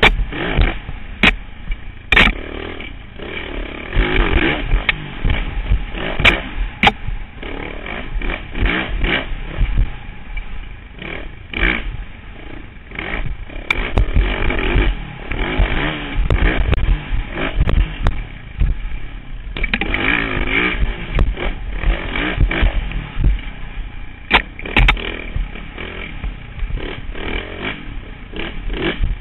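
Dirt bike engine revving up and down as the bike rides a rough, bumpy trail, heard through a helmet-mounted camera's microphone. Repeated knocks and rattles come from the jolts.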